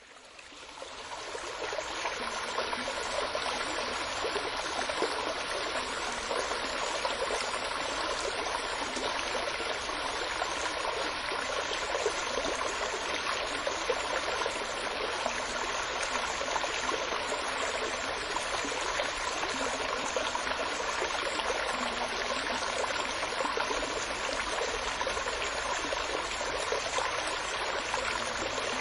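Steady running water of a flowing stream, fading in over the first two seconds and then holding even.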